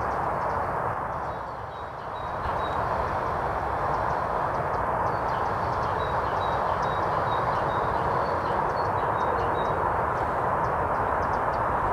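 A steady outdoor rushing noise with an uneven low rumble of wind buffeting the microphone, dipping briefly about two seconds in. Faint short high peeps come and go over it.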